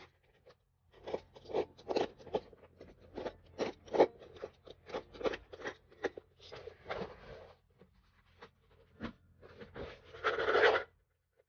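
The coated canvas and leather trim of a taken-apart Louis Vuitton Keepall being handled: a run of short crinkling scrapes and rustles, then a longer, louder rubbing sweep near the end as a hand smooths the canvas panel flat.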